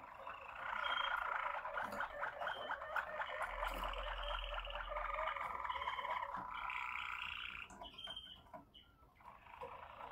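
Malinois Waterslager song canary singing a long, continuous song of rapid rolling trills mixed with held whistled notes. The song breaks off briefly near the end, then starts again.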